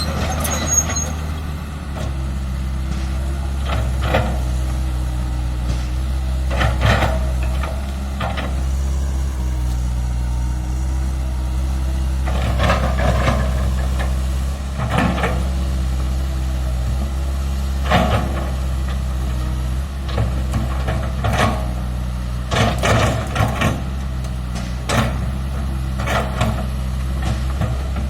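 Komatsu PC160LC-8 excavator's diesel engine running steadily under working load, with a sharp clank from the bucket and boom every few seconds as it works the soil.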